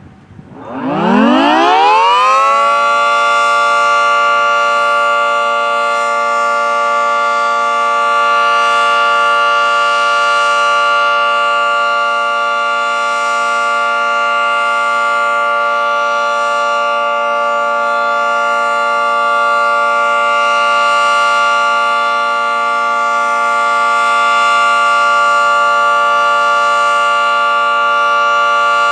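Federal Signal 2T22A two-tone electromechanical warning siren winding up from a standstill, its pitch rising steeply over the first two or three seconds. It then holds a steady two-tone chord on the alert signal, its loudness swelling and fading slightly.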